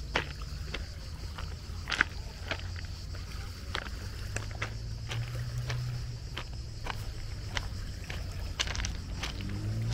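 Footsteps of someone walking on a hard path, a little under two steps a second, with a steady low hum and a steady high hiss behind them.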